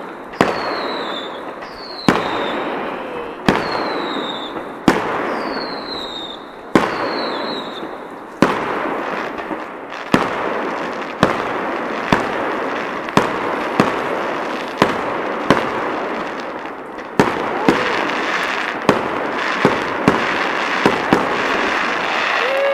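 Fireworks display: aerial shells bursting with sharp bangs about every one and a half seconds, the first few each followed by a short falling whistle, over a continuous crackle. Near the end the bangs come faster, several in quick succession.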